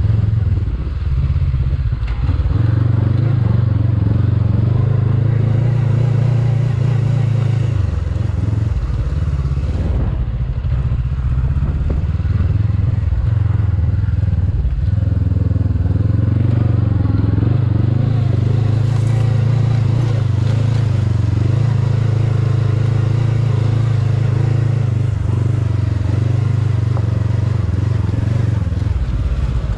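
2021 Honda CB500X's 471 cc parallel-twin engine pulling the bike up a dirt hill climb. The note is steady and loud, easing off briefly a few times as the throttle is closed and reopened.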